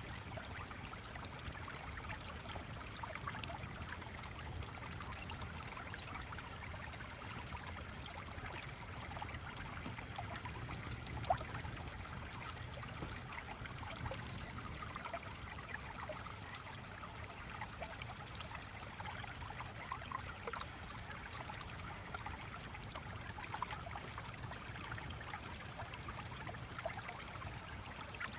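A stream flowing and trickling steadily, with small scattered ticks through it and one sharper click about eleven seconds in.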